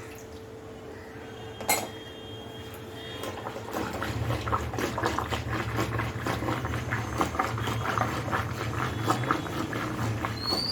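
Food cooking in a pan on the stove, bubbling and crackling; the crackling thickens and grows louder about four seconds in. A single sharp click comes near two seconds in.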